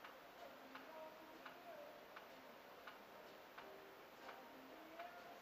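Near silence: faint room tone with a scattering of soft, irregular ticks.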